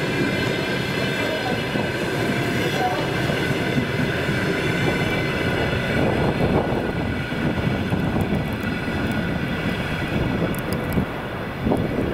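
Passenger train coaches rolling past and pulling away: a steady wheel-on-rail rumble with a high steady whine that fades from about halfway, as the tail of the train recedes. A few short clicks near the end.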